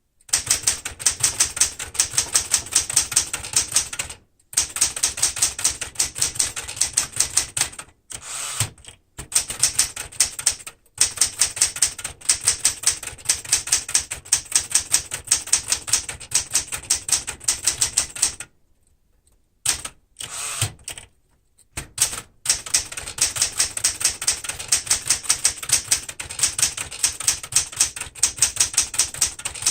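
A serviced 1973 Smith-Corona Galaxie Twelve manual typewriter being typed on fast, its typebars striking the platen in a rapid, even stream of sharp clacks. The stream breaks off for a few short pauses, the longest about a second, two-thirds of the way through.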